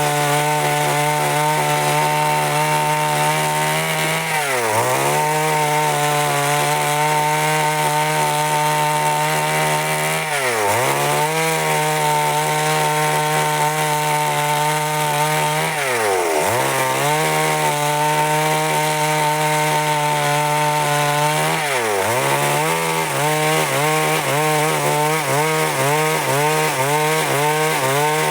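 Stihl MS 382 two-stroke chainsaw running at high revs while cutting wood, with a steady high whine. Its pitch briefly sags and picks back up about every six seconds.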